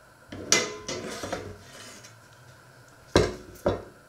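Kitchen clatter of dishes, then a porcelain plate set down on a wooden worktop with a heavy knock about three seconds in, followed by a lighter knock.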